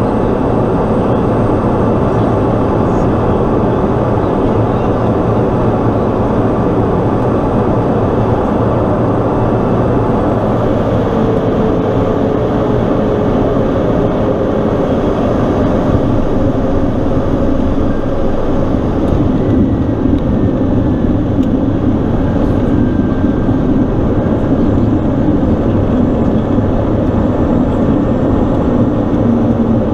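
Pilatus PC-12's single turboprop engine and propeller heard from inside the cockpit: a loud, steady drone through the final approach and the rollout on the runway.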